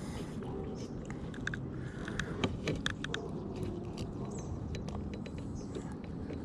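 Scattered light clicks and taps of a fish and fishing tackle being handled in a kayak, as a bass is unhooked, over a steady low rumble.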